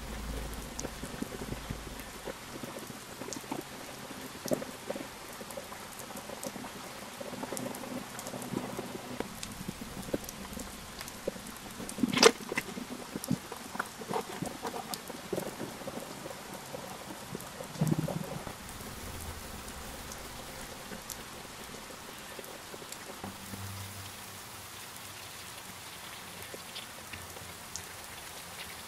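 Steady patter of rain, with small clicks and taps as pebbles are set into moss and soil with metal tweezers. There is one sharp click about twelve seconds in and a duller knock around eighteen seconds.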